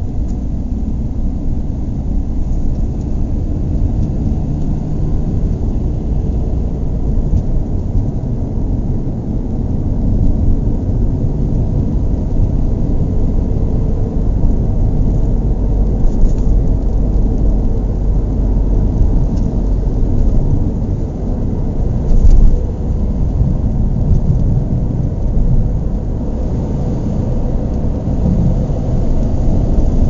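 Car engine running with a low, steady note, with a brief louder surge about two-thirds of the way through.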